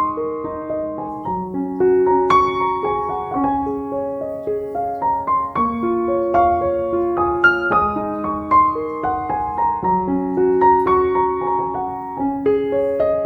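Background music: a gentle piano melody of struck, sustained notes.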